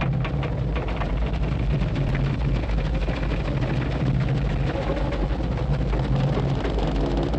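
Animated-film sound effects: a steady deep rumble under a dense run of small rattles and clatters.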